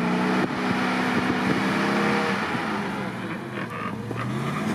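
GAZ-66 truck's engine running under load as it climbs a steep snowy slope in ruts, its pitch sinking about halfway through and picking up again near the end.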